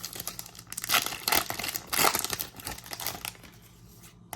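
Trading card pack wrapper being torn open and crinkled by hand: crackly rustling for about three seconds that then dies down, with a single sharp click near the end.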